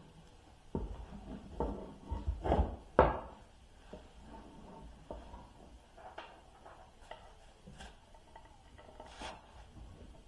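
Carved wooden pieces being handled and set against each other on a workbench: a few hard wooden knocks about two to three seconds in, then lighter taps and clicks.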